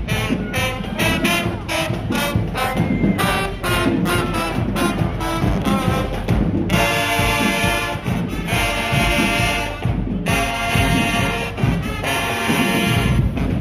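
High school marching band playing: brass over a driving, rapid beat, then long held brass chords about halfway through, broken by a short gap before a second held chord.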